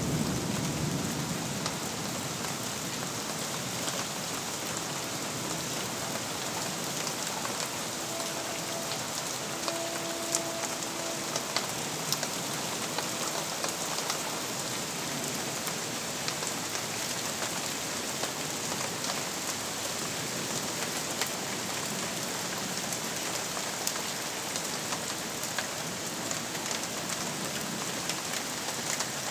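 Steady rain falling during a thunderstorm, with scattered single drops ticking close by. A low rumble of thunder fades out in the first second or two.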